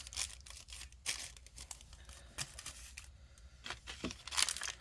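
Crinkling and rustling of thin plastic packaging being handled and opened, a quick run of crackles with a short lull about three seconds in and louder crinkles near the end.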